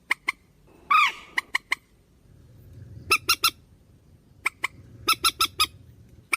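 Recorded swamphen ('trích ré') calls of the kind played as a trapping lure. One drawn-out squawk about a second in, then bursts of three to five quick, sharp, clipped notes.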